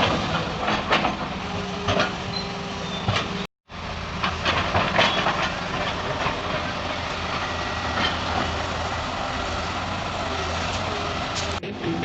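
Heavy diesel engine of a Tata Hitachi excavator running steadily, with scattered sharp metallic knocks and clanks. The sound cuts out completely for a moment about a third of the way through.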